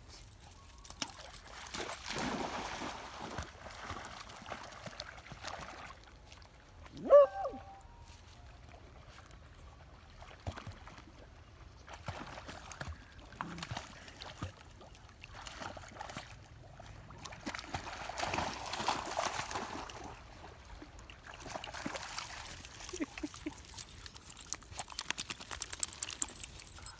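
Beagles splashing and paddling in shallow pond water, the splashing coming and going in bursts. About seven seconds in, one short loud dog yelp stands out above the water.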